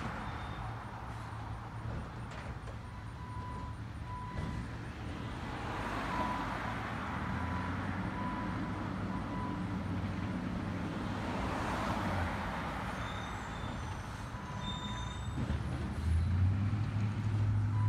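Low engine hum of a 2009 Autocar ACX / Heil Odyssey CNG garbage truck working its way up the street, getting louder about two seconds before the end as it comes closer. Cars pass by on the road twice, each a swell of road noise that comes and goes.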